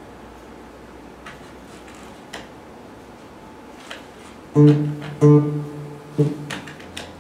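Cutaway acoustic guitar beginning a song's intro: a few faint clicks at first, then, about four and a half seconds in, two strong plucked chords half a second apart and a third about a second later, left ringing.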